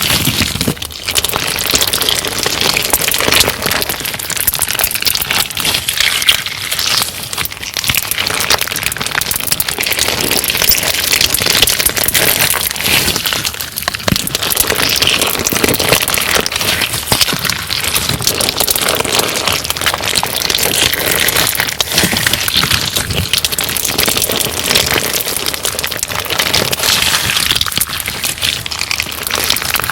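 Homemade crunchy clear slime ('crystal glass' slime) being kneaded and pressed by hand, giving a dense, continuous crackling of many tiny pops and crunches.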